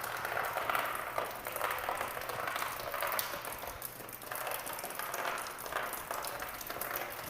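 Water leaking through from the flat above, dripping and splashing steadily as many small drops land.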